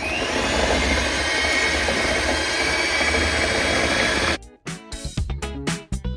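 Electric mixer running at its top speed, beating cake batter with a steady, loud whir, then cutting off suddenly about four seconds in.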